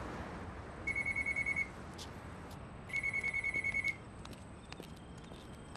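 Public payphone ringing with an electronic trill: two rings, each about a second long, about two seconds apart.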